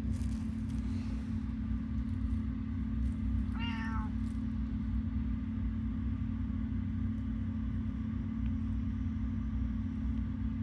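A senior tortoiseshell cat gives one short meow about three and a half seconds in, over a steady low hum.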